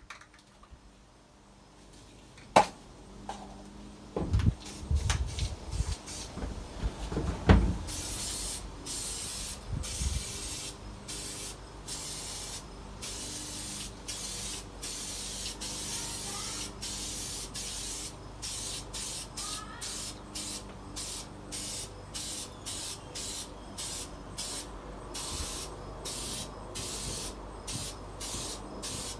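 Rust-killer primer being sprayed onto metal in repeated short hissing bursts, about one a second, after a few knocks from handling the container.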